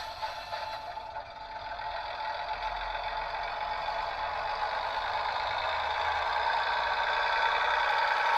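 Diesel engine sound from the sound decoder of a Bachmann OO-scale Class 101 DMU model, played through its small onboard speaker, growing steadily louder.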